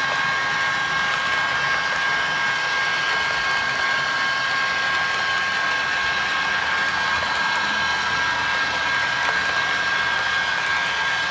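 HO-scale model freight train rolling past on the layout's track: a steady rushing noise of wheels on rail, with a faint steady high tone running underneath.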